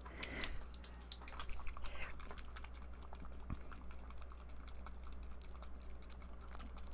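Small glass ink bottle being handled: faint, irregular clicks and taps, with a low steady hum underneath.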